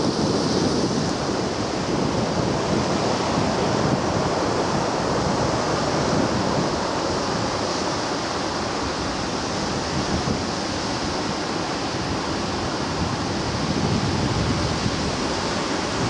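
Sea waves washing in and breaking: a steady surf noise that swells and eases slowly over several seconds.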